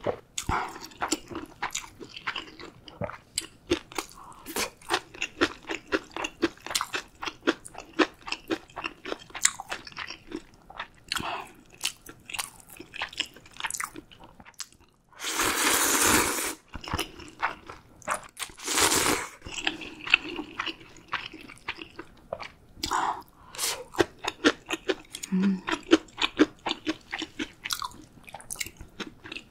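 Close-miked eating of Shin Ramyun with dumplings: steady wet chewing and biting, with two louder, longer slurps of noodles about halfway through.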